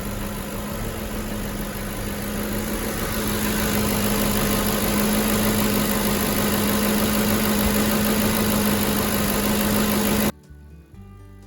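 Ford F-150 5.4 L three-valve V8 running steadily at idle with new spark plugs fitted, a steady hum that grows louder a few seconds in. It cuts off suddenly near the end, leaving faint music.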